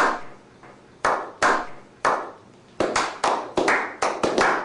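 A slow clap by a small group of men. Single hand claps come about a second apart, then from about three seconds in they build into quicker, overlapping claps.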